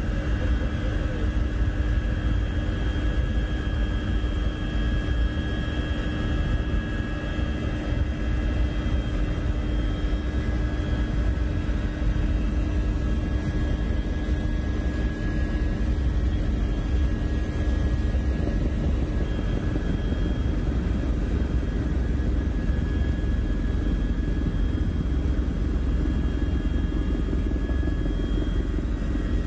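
Steady mechanical drone: a loud, even low rumble with constant whining tones above it, unchanging throughout.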